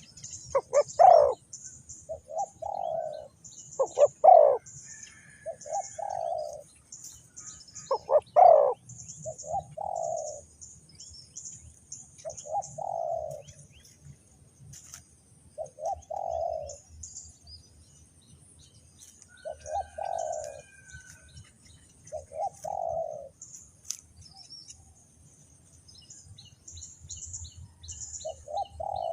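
Spotted dove cooing, its low phrases repeating every few seconds, the three in the first nine seconds louder than the rest. Small birds chirp high and thin throughout.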